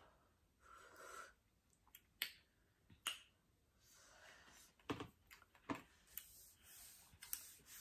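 Faint breathing out through open mouths, with a few small mouth clicks and smacks scattered through it: people sitting with mouths burning from very spicy noodles.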